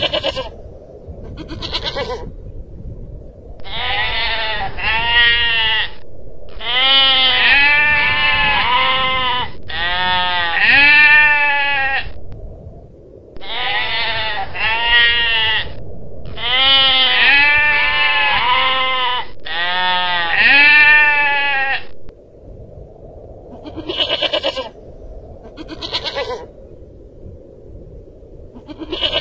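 Long-tailed goral calling again and again: bleats that rise and then fall in pitch. A few single calls come near the start and near the end, and through the middle they come in close runs of two or three, one after another.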